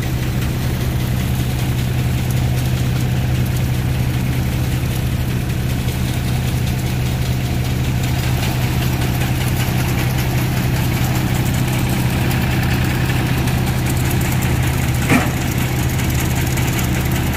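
Tractor engine running steadily under load, driving a Gill paddy thresher whose drum spins as straw is thrown out in a steady rush.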